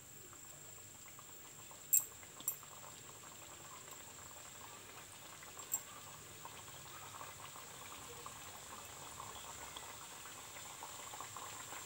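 Semolina biscuits deep-frying in hot oil in a pan over a low flame: a steady fine sizzling and bubbling that slowly builds as more biscuits go into the oil. There are a few sharp clicks about two and six seconds in.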